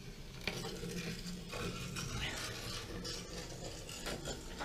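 Light handling noises: small clicks, scraping and rubbing, with one sharper click about half a second in.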